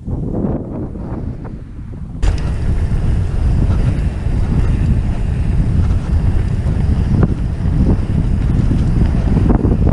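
Wind buffeting the microphone, a heavy low rumble that jumps suddenly louder about two seconds in and then stays steady.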